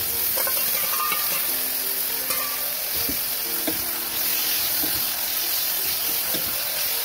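Chicken pieces sizzling as they fry in hot oil in a wok, stirred with a metal ladle, with a few light clicks of the ladle against the pan.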